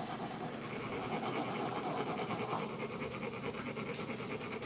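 Metal sand-mandala cones being rasped with a metal scraper: a steady, rapid grating that makes the coloured sand trickle out in a fine stream.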